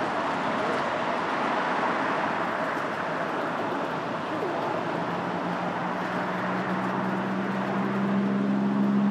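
Road traffic: a steady rush of passing vehicles. About halfway through, a nearby vehicle's engine joins in with a low, steady hum that grows louder toward the end.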